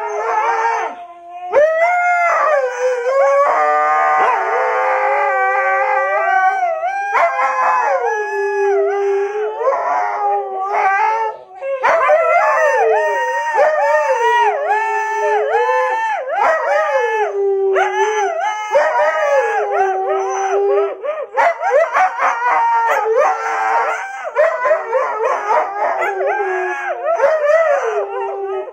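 Dog howling in long, wavering calls that rise and fall in pitch, one after another with only short breaks.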